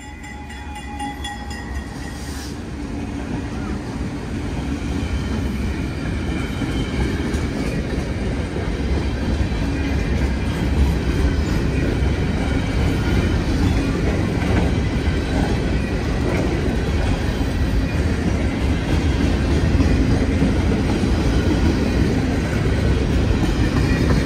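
Freight train passing close by: two GE C40-8 diesel locomotives, then a long string of boxcars. A heavy steady rumble with wheels clacking, growing louder over the first several seconds and then holding.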